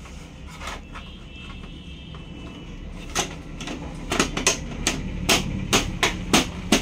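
Sharp plastic clicks and knocks as the Canon G2770 printer's lock and parts are handled and pressed into place. They come about three seconds in, a run of about a dozen, two or three a second.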